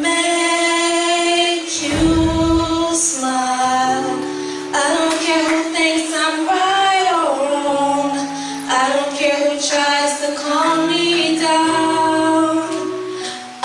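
Women's voices singing a slow gospel song in long held notes with vibrato, over low sustained bass notes. There is a short low thump about two seconds in.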